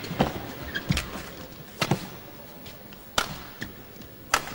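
Badminton rackets striking a shuttlecock back and forth in a rally: about five sharp hits, each a second or so apart, over the low hum of an arena crowd.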